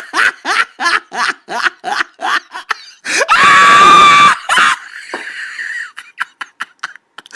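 A person laughing hard in rapid bursts, about four a second, breaking into one long high-pitched shriek of laughter about three seconds in, then trailing off into fainter breathy laughter.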